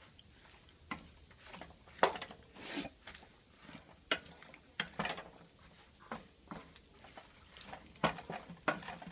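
A utensil knocking and scraping against a cooking pot while stirring and spreading out chicken and vegetables: irregular clinks and taps, with a short scrape about two and a half seconds in.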